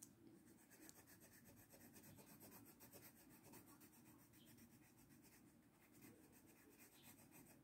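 Faint scratching of a coloured pencil shading on a paper colouring-book page, in short repeated strokes.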